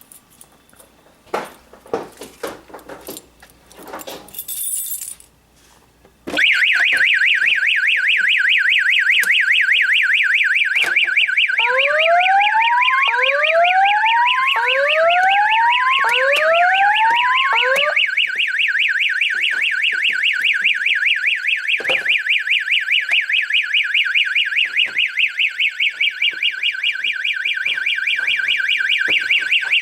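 Home fire alarm system set off from its manual pull station: a few clicks and knocks, then about six seconds in a loud, fast warbling alarm tone starts and keeps going until it cuts off at the end. Partway through, a lower rising whoop repeats about five times over the alarm.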